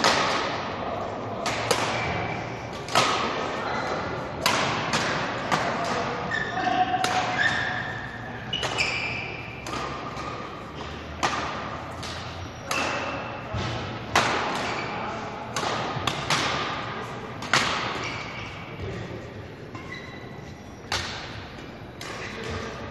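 Badminton rackets striking a shuttlecock in rallies, sharp hits roughly once a second echoing in a large hall. Short squeaks of court shoes on the wooden floor come between the hits.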